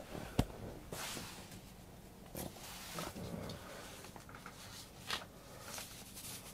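Rustling and handling noises, with a sharp click about half a second in and scattered bursts of rustle after it.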